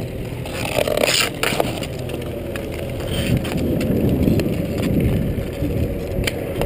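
Inline skate wheels rolling on asphalt, a steady low rumble, with a few sharp clacks from hockey sticks striking the ball or puck.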